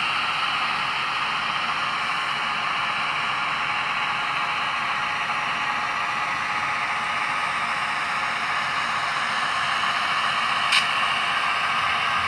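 Model diesel genset locomotive running at notch 3, its sound decoder playing the engine sound through the model's small speaker as a steady, hiss-like noise. A single sharp click comes near the end.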